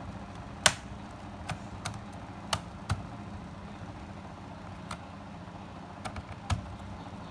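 Scattered sharp clicks and taps of a screwdriver and small screws on a laptop's plastic base cover while the RAM cover is screwed down, about eight clicks at irregular intervals, the loudest about a second in.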